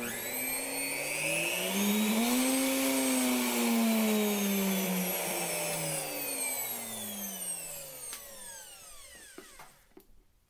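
Bosch router motor, running with its faulty power switch bypassed, starting suddenly and spinning up at its lowest speed setting, then winding down with steadily falling pitch until it stops near the end.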